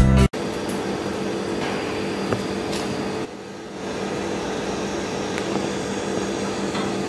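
Background music cuts off sharply just after the start. Then a steady machine hum runs on, dipping briefly a little after three seconds in, with a few faint clicks of hand tools being handled.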